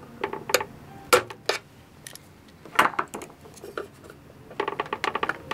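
Sharp metallic clicks and clinks as pliers, then a small screwdriver, work a retaining clip back onto a turntable's centre spindle; near the end a quick run of rapid clicking.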